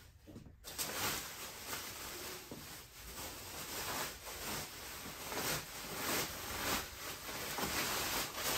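Plastic shipping film and bubble wrap crinkling and rustling as it is pulled off a dirt bike by hand, starting under a second in and going on in an uneven stream of crackles.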